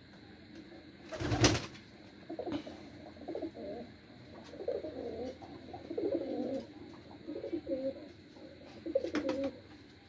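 White domestic pigeons cooing, several low coo phrases one after another, with a loud short thump about a second in.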